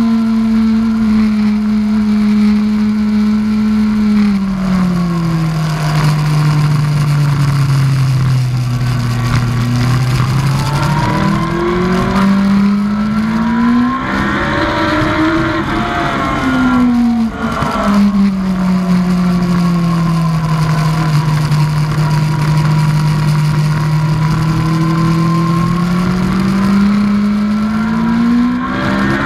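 2003 Yamaha R1's 998 cc inline-four engine at speed, with wind rushing over the helmet-mounted microphone. The revs fall away over the first ten seconds, climb to a peak about halfway, drop sharply, hold steady, then climb again near the end.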